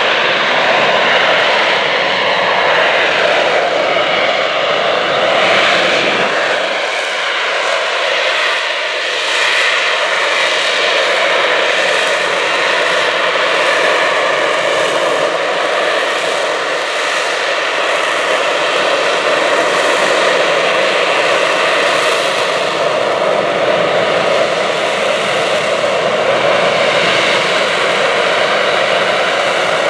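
Sea Harrier jump jet hovering, its Rolls-Royce Pegasus vectored-thrust turbofan giving a loud, steady roar with a whine over it. The deep rumble drops away about six seconds in as the jet turns.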